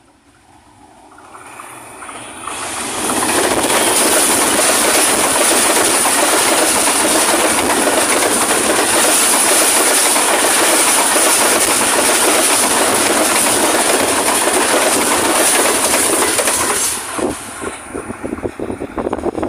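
Express passenger train hauled by a GEU-20 (GE U20C) diesel-electric locomotive passing through at speed. The noise builds over the first three seconds as the locomotive nears, then the coaches' wheels on the rails make a loud, steady rush with a high hiss for about fourteen seconds. It drops off suddenly near the end, leaving uneven clattering as the last coach goes by.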